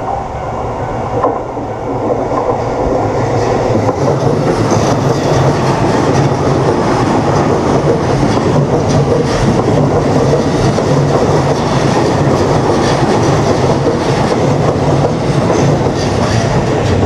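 A train passing close by, its wheels clattering over the rail joints. It grows louder over the first few seconds, then runs on steadily.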